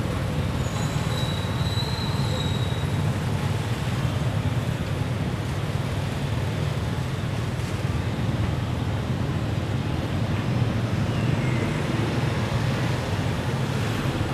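Steady low rumbling noise, with a faint high whistle briefly near the start.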